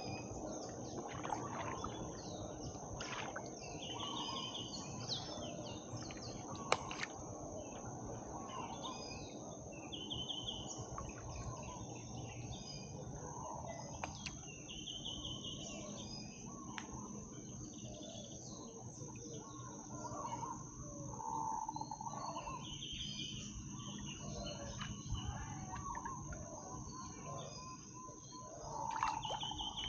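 Wild birds chirping and calling over and over, against a steady high insect trill and a low steady background noise, with a few sharp clicks along the way.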